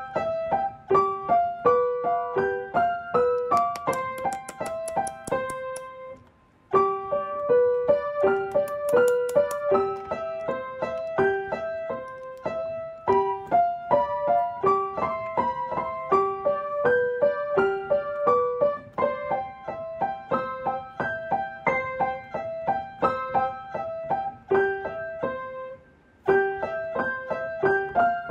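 Background piano music: a light melody of evenly paced single notes, breaking off briefly twice.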